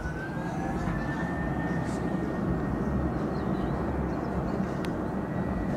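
Twin-engine jet airliner's engines spooling up for takeoff on the runway: a whine rising in pitch over the first second and a half, then holding steady over a broad, steady engine rumble that grows louder.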